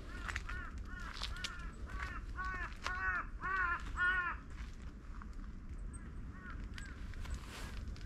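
A crow cawing in a rapid run of short, harsh calls, a few a second, loudest around three to four seconds in, with fainter caws later. Footsteps on a forest trail tick underneath.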